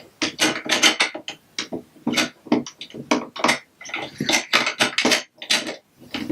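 Plastic Lego Duplo pieces clattering and clicking as they are handled and pressed together, in a rapid, irregular run of short knocks.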